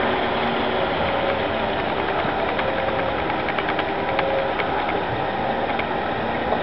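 A steady mechanical running noise with a faint hum and many light, irregular clicks and ticks.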